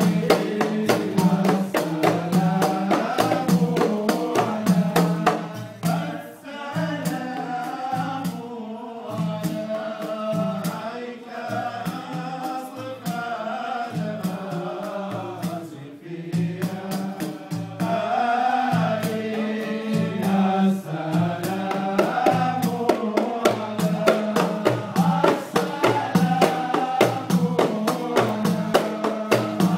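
Men's voices chanting a Mawlid devotional song to fast beating on hand-held frame drums. The drumming drops back for a stretch in the middle and then comes back strongly.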